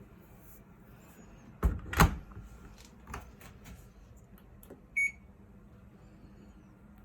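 Two knocks close together and a few light clicks from handling a Sharp ES-S7B drum washer, then one short electronic beep from its control panel.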